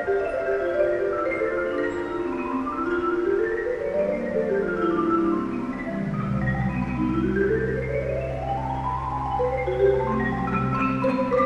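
Solo concert marimba played in fast mallet runs that sweep down the keyboard and then climb back up, with low held tones sounding beneath from about six seconds in.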